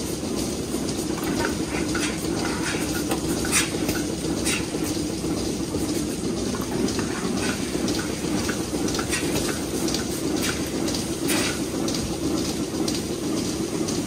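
Milking parlour machinery running: a steady mechanical drone from the milking vacuum system, with a few short sharp hisses of air as milking clusters are put on the cows.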